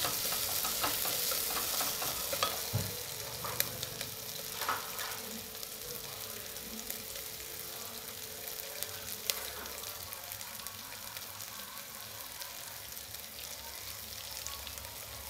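Sliced onions frying in hot oil in a steel pressure cooker, sizzling steadily as they sauté toward translucent. A wooden spatula scrapes and stirs them for the first few seconds. The sizzle then goes on alone, a little quieter.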